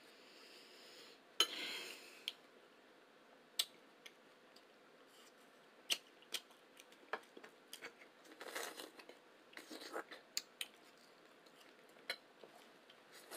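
Quiet, close-miked eating: chewing with sharp mouth clicks and smacks scattered throughout, and a few short rustly chews.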